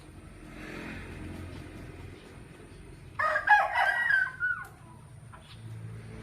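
A rooster crowing once, a single call of about a second and a half beginning about three seconds in.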